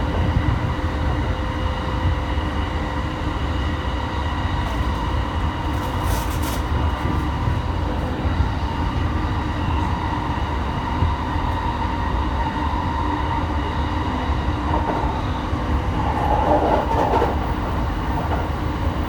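JR E217-series electric train running at speed, heard from inside the car: a continuous rumble of wheels on rail with a steady whine held at one pitch. The noise swells briefly about sixteen seconds in.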